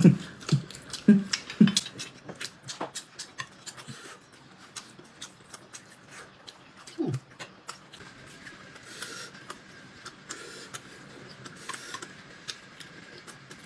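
Someone eating dumplings close to the microphone: a dense run of chewing and lip-smacking clicks, with a few brief hums, one falling in pitch about seven seconds in.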